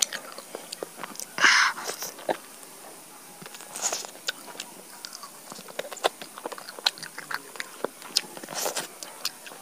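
Close-miked eating of roasted chicken: fingers tearing the meat and skin apart and mouth chewing, a steady run of small wet clicks and crackles. A louder rustling burst comes about a second and a half in.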